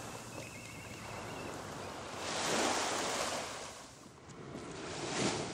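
Sea waves washing in on a rocky shore, one wave surging about two seconds in and another near the end.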